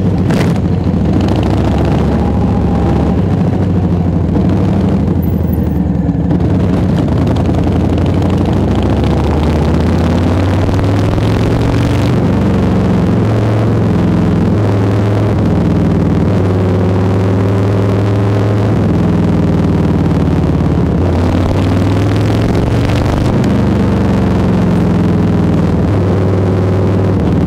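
Harley-Davidson FXBB's Milwaukee-Eight 107 V-twin running through a Jekill&Hyde valve exhaust while riding. The engine note is loud and steady, its pitch stepping up and down with throttle and gear changes.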